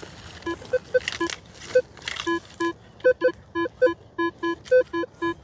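Metal detector giving short electronic target beeps at two alternating pitches as the coil is swept over the ground. The beeps come scattered at first, then in a quick string of about four a second from about two seconds in.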